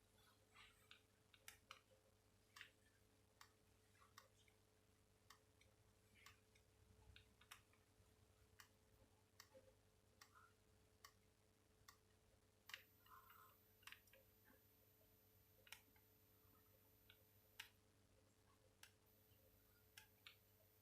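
Near silence broken by faint, short clicks at irregular intervals, about one or two a second, typical of the keypad buttons of a Samsung SGH-X460 mobile phone being pressed.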